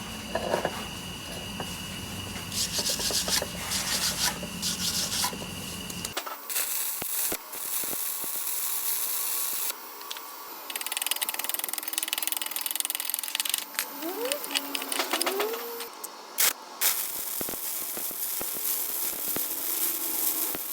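Scraping and rubbing work sounds of a hand tool against metal, rasping and uneven with scattered clicks. The sound changes abruptly at an edit about six seconds in.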